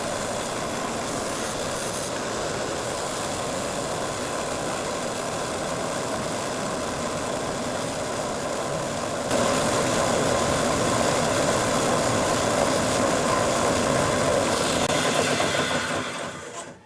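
Bandsaw running steadily on its newly repaired wheel tyre; about nine seconds in it gets louder, and near the end the sound dies away sharply.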